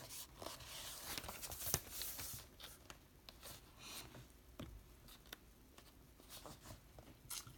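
Hands handling and turning over a DVD box set: faint rustling with scattered light clicks and taps, the sharpest about two seconds in.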